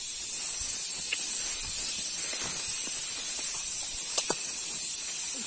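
Footsteps and rustling of tall grass as people walk through it, over a steady high hiss, with a small knock about four seconds in.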